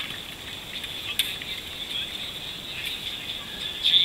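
Paddles working the water alongside a nine-seat racing canoe: a steady splashy hiss with a couple of sharp knocks, about a second in and near three seconds.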